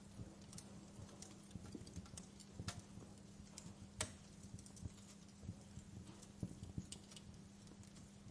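Wood fire crackling in a fireplace: faint, irregular pops and snaps of burning wood and embers, the sharpest about four seconds in, over a steady low hum.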